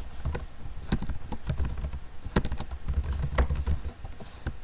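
Typing on a computer keyboard: a quick, uneven run of keystroke clicks as a short word is typed.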